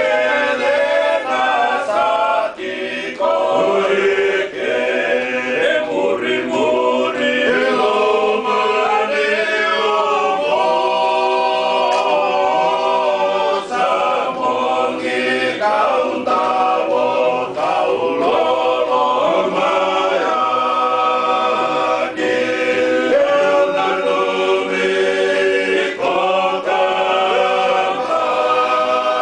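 Small group of Fijian men singing a traditional song unaccompanied in several-part harmony. Their voices hold long chords that change together every few seconds.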